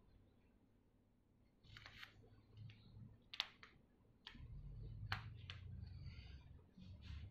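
Diamond painting work: faint, irregular clicks and taps as a drill pen picks up resin diamond drills and presses them onto the canvas.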